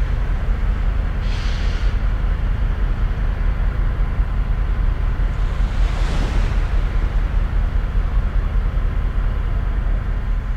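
Wind buffeting the microphone in a loud, fluctuating low rumble, over a steady hiss of wind and water along the shore. A short hiss about a second in and a swelling wash about six seconds in.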